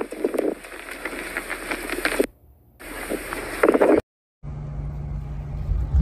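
Blizzard wind gusting hard across the microphone, cut off twice by brief near silences. After the second break a steady low hum runs under a rumble of wind.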